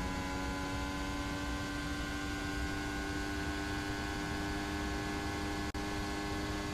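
Formula 1 car engine holding a steady high note, its pitch sinking only slightly, as at near-constant revs. The sound cuts out for a moment about six seconds in.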